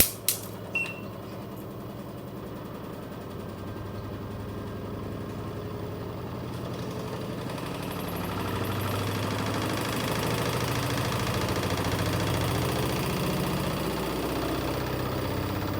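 Washing machine drum spinning up in its spin cycle, run from the service test mode: motor hum and drum rumble growing louder over the first eight seconds or so, then running steadily. A few sharp clicks come right at the start.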